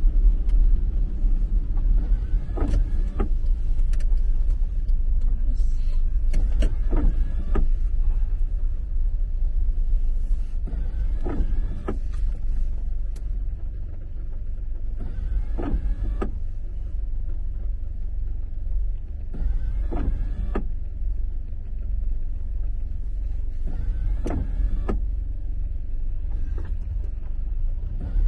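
Steady low rumble of a car's engine and tyres on a wet road, heard from inside the cabin, with the windscreen wipers sweeping in short strokes about every four to five seconds.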